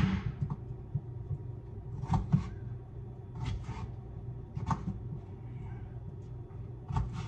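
Kitchen handling sounds: a few light knocks and clatters of cookware and utensils, spaced a second or so apart, over a steady low hum.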